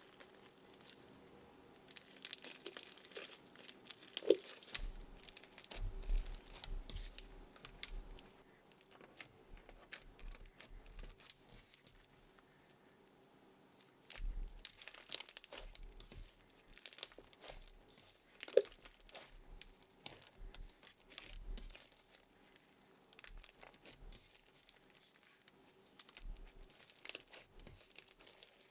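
Yellow slime packed with beads being mixed, crackling and clicking irregularly, in busy spells with quieter gaps between.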